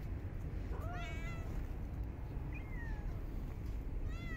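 Domestic cats meowing: three meows, a rising one about a second in, a fainter falling one in the middle, and another starting near the end, over a steady low background rumble.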